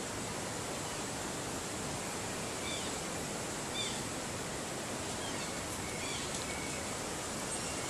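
Steady outdoor background noise, an even hiss, with a few faint short high chirps in the middle.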